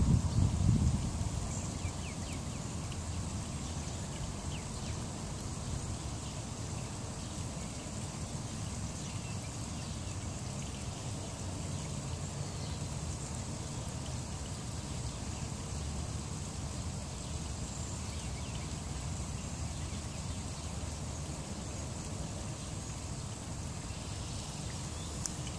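Steady low background rumble of outdoor ambience, even throughout with no distinct events.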